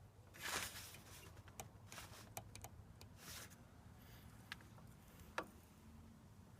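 Faint handling noises: a short rustle about half a second in, another near the middle, and a scatter of light clicks.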